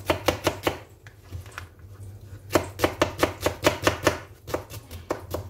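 Kitchen knife chopping an onion on a plastic cutting board: a short quick run of strokes, a pause of nearly two seconds, then a longer run at about five strokes a second.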